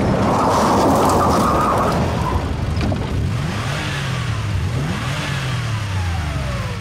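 A Volkswagen Golf GTI's engine revving. A loud rushing noise fills the first two seconds, then the engine note rises and falls several times.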